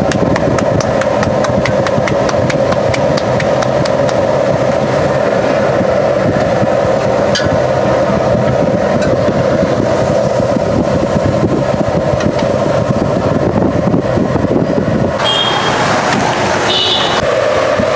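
Steady roar of a street-food stall's gas burner and frying setup, with faint crackles in the first few seconds. The sound changes briefly about fifteen seconds in.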